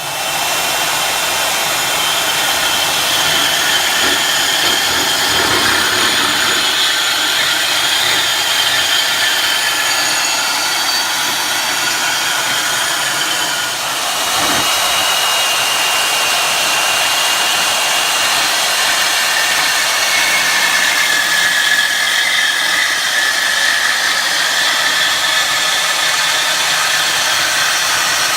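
Power tool cutting through a steel exhaust pipe: a steady loud whining grind that starts suddenly, eases for a moment about halfway through, then carries on.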